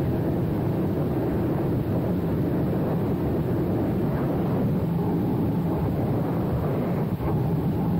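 Freefall wind rushing over the camera's microphone: a steady, dense low rush with no break, dipping briefly near the end.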